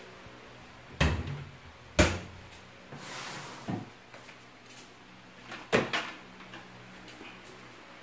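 Knocks and clatters of a metal locker door and household gear being handled: two hard knocks about a second apart, a rustle, a lighter knock, then a quick double knock.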